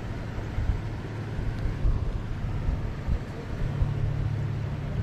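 Wind buffeting the microphone, a low uneven rumble over a steady low hum.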